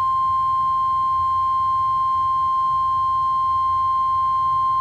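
NOAA Weather Radio warning alarm tone: a single steady, loud tone at 1050 Hz, the alert that signals an emergency weather message is about to be broadcast.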